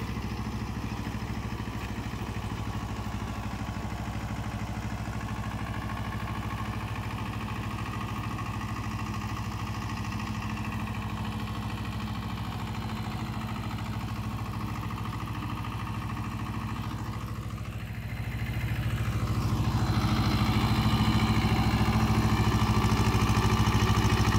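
Sonalika tractor's diesel engine running under load as it drives a Field King rotavator through wet, grassy soil, a steady mid-pitched drone. About three-quarters of the way through the engine note dips briefly, then the sound grows louder and stays louder.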